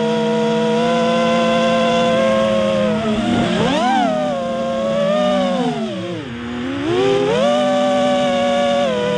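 Quadcopter's electric motors and propellers whining at a steady pitch, which swoops up about four seconds in, drops low and quieter about six seconds in as the throttle comes off, then climbs back to a steady whine.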